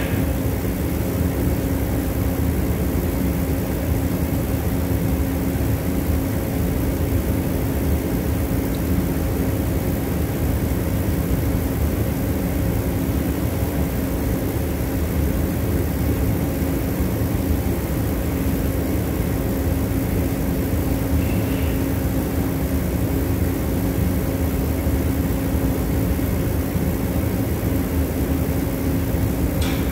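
A steady machine drone with a low, unchanging hum.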